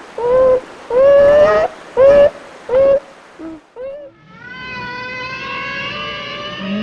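Animal calls: about five short, arching pitched calls in the first three seconds, then, after a brief pause, a different long drawn-out call with many overtones, rising slightly in pitch.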